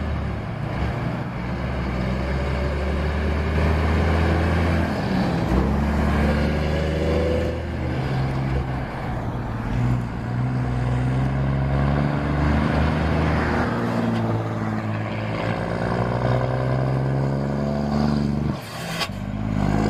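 Scania truck diesel engines pulling away under load, running loud. The engine note rises and falls several times as the trucks go through the gears, with a brief drop shortly before the end.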